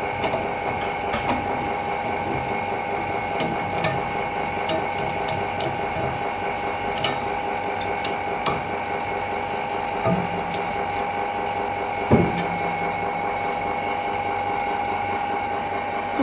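Steady mechanical hum of workshop machinery with a constant high whine, broken by scattered light clicks and a few soft knocks.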